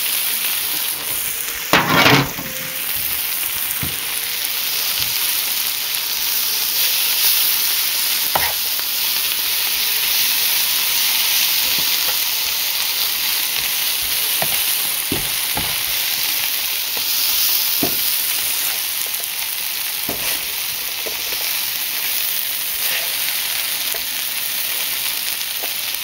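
Spinach and dandelion, honeysuckle and violet flowers sizzling steadily as they sauté in a frying pan, with scattered taps of the stirring utensil and a brief louder stir about two seconds in.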